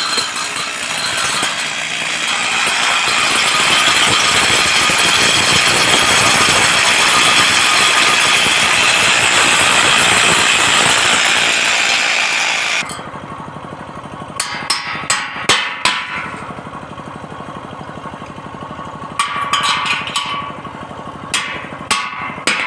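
Welding arc sizzling steadily for about thirteen seconds, then cutting off suddenly. A quieter steady machine hum follows, with scattered sharp metallic taps.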